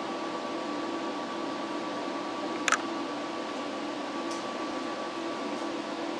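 Steady workshop hum and hiss with a faint high tone, broken once by a sharp click a little under three seconds in.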